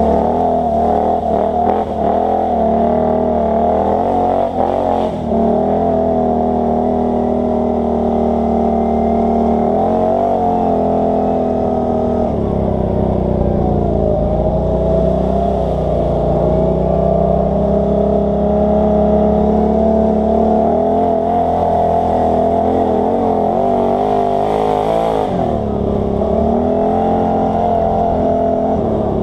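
ATV engine running steadily while riding a dirt trail. Its pitch drops about twelve seconds in and then climbs back as the machine speeds up again.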